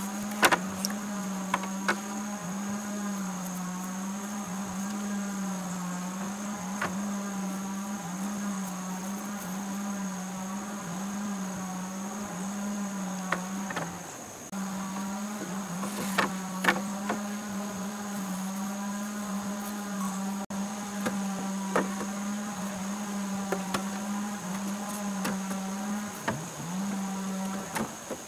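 A steady low droning hum, wavering slightly in pitch, that breaks off briefly about halfway and again near the end, with a fainter steady high whine above it. Now and then there are light knocks as bamboo poles are laid on a bamboo frame.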